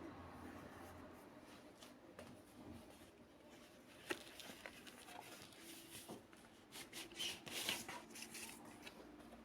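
Quiet handling noises: a few sharp clicks, and a run of scraping and rustling that is loudest a little past the middle.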